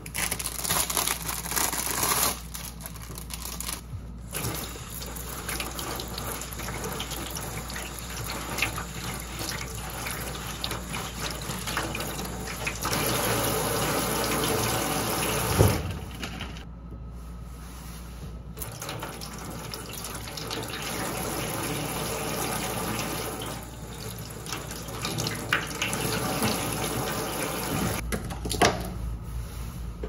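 Tap water running into a stainless-steel sink while a camping pot is washed, the flow breaking off briefly twice, with scattered clatter and one sharper knock of the pot in the sink about halfway through.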